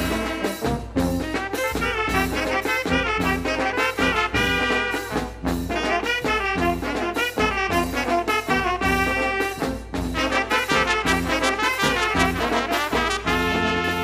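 Small brass band (trumpets, trombone, tuba, alto saxophone, with snare and bass drum) playing a lively tune over a steady beat, settling onto a held final chord near the end.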